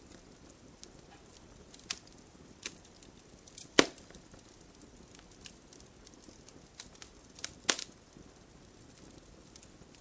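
Bonfire crackling over a soft steady hiss of rain: scattered sharp pops and snaps of burning wood, with two louder pops, about 4 seconds in and near 8 seconds.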